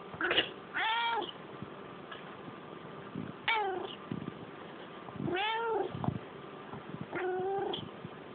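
A domestic cat meowing four times in drawn-out, complaining calls, a second or two apart, after a short sharp sound at the very start. The calls are the cat's angry protest at a person's sneezing.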